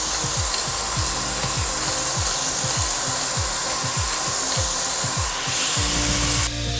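Pepper mill grinding pepper onto chicken breasts frying in a pan: a quick run of gritty grinding strokes over a steady sizzle, the grinding stopping a little before six seconds in.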